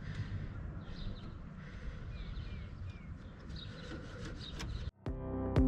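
Quiet outdoor background with a low steady rumble, faint scraping and a few faint bird chirps; just before the end it cuts out for an instant and electronic music with a steady beat comes in.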